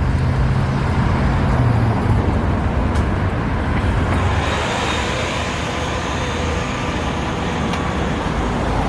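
Road traffic: a heavy vehicle's engine hums low for the first couple of seconds and fades, over a steady wash of traffic noise.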